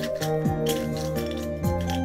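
Background music: held chords over a deep bass that slides down in pitch twice, with a light ticking beat on top.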